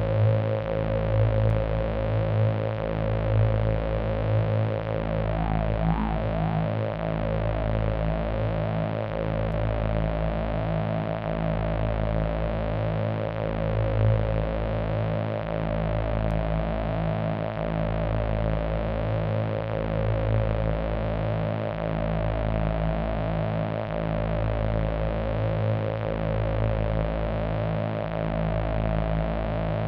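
AnalogFX SER-2020 analog synthesizer playing a steady drone over a low note that repeats about every two and a half seconds. A brief wavering filter sweep comes about six seconds in.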